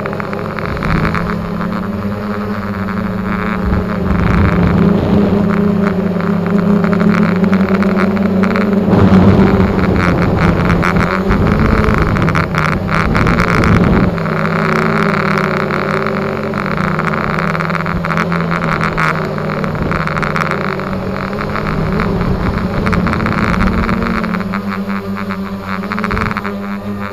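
Electric motors and propellers of an X450 radio-controlled aircraft, heard from its onboard camera: a steady buzzing hum whose pitch steps up and down with the throttle. It is loudest in the middle of the stretch.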